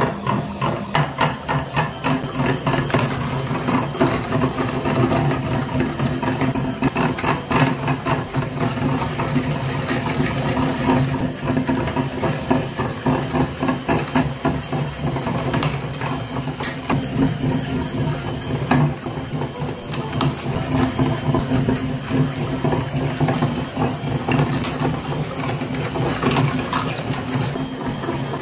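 Motor-driven metal meat grinder running steadily: a continuous machine hum with many irregular clicks and cracks as hard candy is crushed through it.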